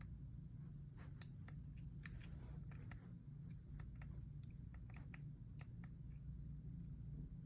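Faint, irregular light clicks over a steady low hum.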